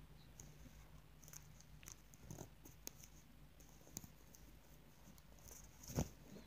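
Near silence: faint steady room hum with scattered soft clicks of a phone being handled, and a sharper knock about six seconds in as the phone is set down.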